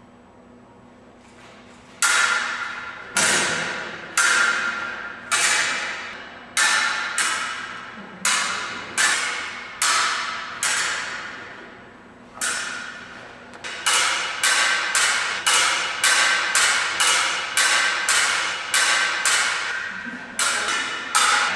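Fencing blades clashing, each strike ringing out before the next: about one a second at first, quickening to about two a second past the halfway mark.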